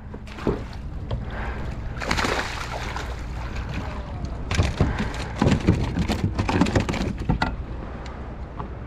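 Water splashing and sloshing as a hooked sheepshead is scooped up in a landing net beside a kayak. There is a burst of splashing about two seconds in, then a denser run of irregular splashes and knocks from about four and a half to seven and a half seconds as the netted fish is lifted aboard.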